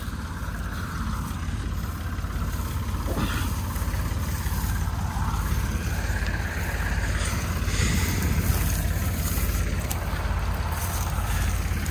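A tractor's engine running steadily nearby, a constant low drone.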